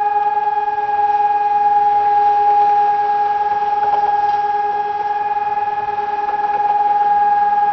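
ECN electronic civil-defence siren sounding the 'Entwarnung' all-clear signal: one steady, unbroken tone with no rise or fall in pitch, swelling and easing slightly in loudness.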